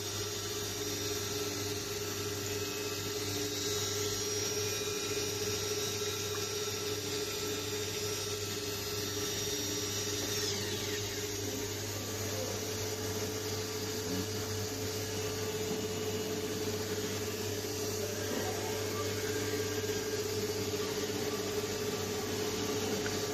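CNC milling machines running in a machine shop while they cut electrodes: a steady motor hum and a high spindle whine made of several held tones. About ten seconds in, one high tone slides down in pitch.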